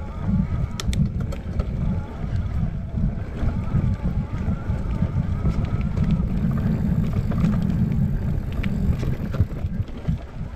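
Mountain bike riding fast down a dirt forest singletrack: wind buffets the handlebar-mounted camera's microphone over a rumble from the tyres and frame on the trail. A few sharp rattling clicks come about a second in and again near the end.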